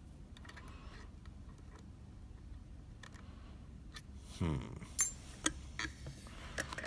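Small metallic clicks and taps of lock picks working in a Sargent Keso mortise cylinder, faint at first, with several sharper single clicks in the second half.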